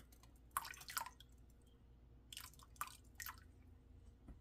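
Liquid fabric dye dripping slowly from a tilted bottle into a pot of water: about five faint, short drips, spread out.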